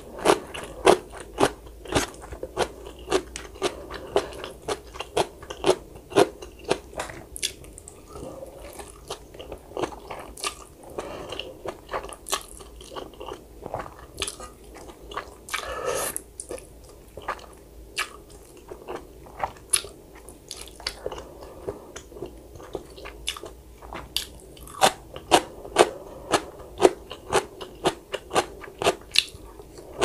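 Close-miked eating: a person biting and chewing crunchy food, with crisp crunches coming in quick runs of about two a second near the start and again near the end, and one longer, noisier sound about halfway through.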